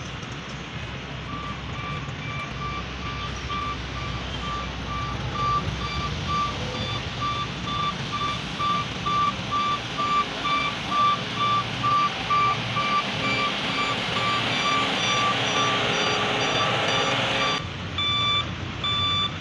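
Reversing alarm on a heavy road-construction vehicle beeping steadily, about two beeps a second, over the rumble of its diesel engine. The engine grows louder, then drops off suddenly near the end while the beeping goes on.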